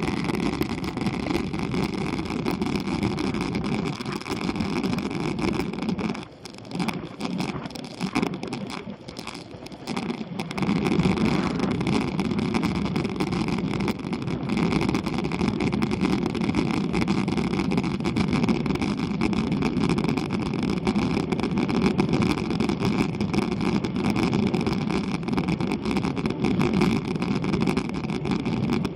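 Steady low rumble of wind and road noise on a handlebar-mounted action camera's microphone as a road bike climbs slowly. The rumble drops away for a few seconds about six seconds in, then comes back.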